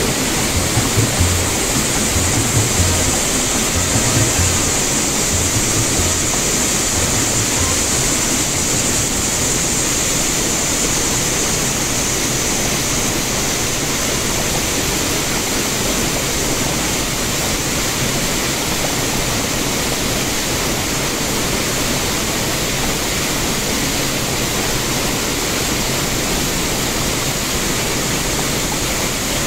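Steady rush of shallow river water running over a riffle around a kayak, a loud even hiss with some low thumps during the first several seconds.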